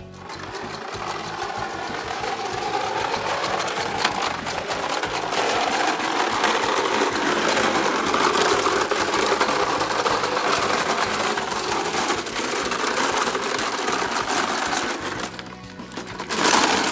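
Plastic toy push lawn mower rolling, its wheels and body rattling and clattering over concrete and then loose gravel. The noise builds over the first couple of seconds, dips near the end, then comes back in a sharp, loud burst.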